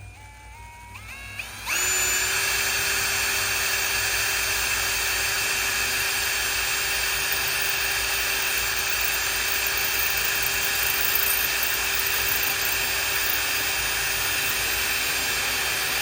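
Power drill boring through the Weber Smoky Mountain's porcelain-enameled steel lid. It revs up in small steps over the first second or two, then runs steadily at full speed under pressure for about fifteen seconds and stops at the very end. It is slow, hard going through the lid metal, called a pain to get through.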